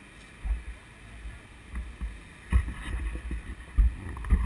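Wind buffeting the microphone of a camera mounted on a moving bicycle, in irregular low gusts that start about half a second in and get stronger and more frequent from about two and a half seconds.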